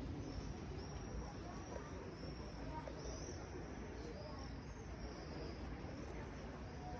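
Outdoor ambience: a steady murmur of distant voices, with faint, high, short chirps recurring throughout.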